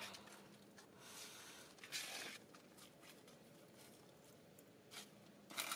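Quiet ambience with a few faint, short rustling noises, the clearest about two seconds in and again near the end.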